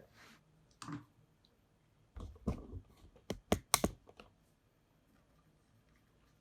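Hard parts being handled: a click about a second in, a low knock with a short rattle around two seconds in, then a quick run of four sharp clicks.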